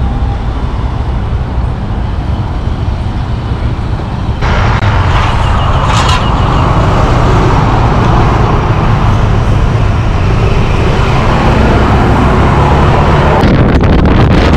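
Honda ADV 160 scooter being ridden: its single-cylinder engine runs under a steady haze of road and wind noise. It gets louder about four seconds in, and choppy wind gusts hit the microphone near the end.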